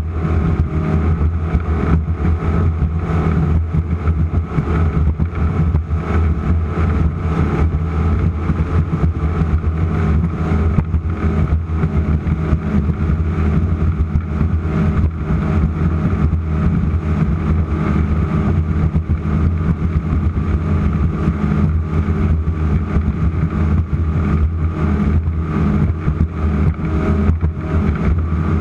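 Offshore racing powerboat's engines running hard at a steady pitch, with a constant rushing noise of wind and water over them.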